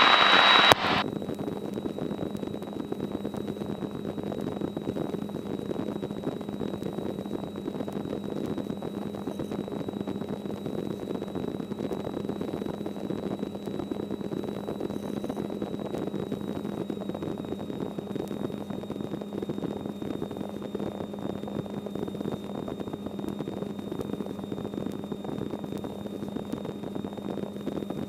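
Helicopter cabin noise during takeoff and climb-out: a steady drone of engine and rotor with a thin, steady high whine.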